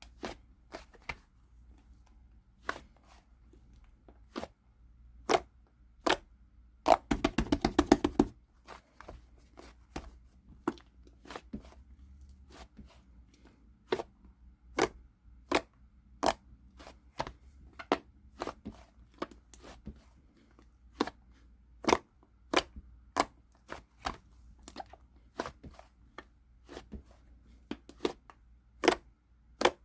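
Slime being handled by hand, making sharp clicks and pops at irregular intervals. About seven seconds in comes a quick run of pops.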